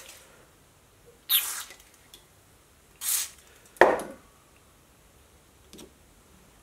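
Hand-tool handling sounds as a tap in a tap wrench is set up in a drilled hole in a steel part held in a vise. There are two brief scraping hisses, then a louder knock just before the four-second mark, and a faint tick near the end.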